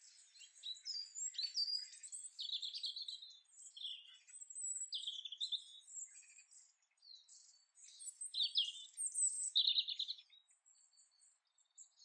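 Small songbirds singing and chirping in short, varied high-pitched phrases with brief pauses between them, growing quieter near the end.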